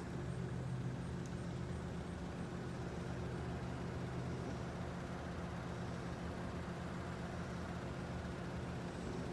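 A motor vehicle's engine idling steadily with an even low hum.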